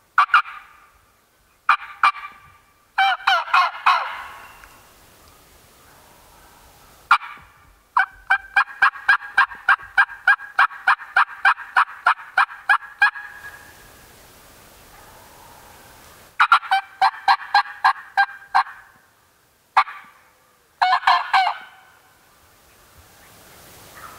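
Wild turkey gobbler gobbling again and again in loud bursts, hammering. One longer run in the middle holds about four even notes a second.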